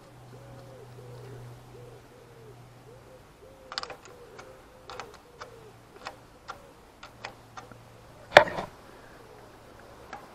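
A spanner clicks against the clutch cable adjuster and locknut on the engine case of a Zontes Tiger 125 as it is worked, about a dozen sharp metal clicks starting around four seconds in. A much louder metal clank comes near the end. Over the first few seconds a bird gives a run of short, low cooing calls.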